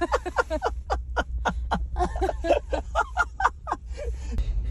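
A woman laughing hard in rapid, breathy bursts, over a steady low rumble.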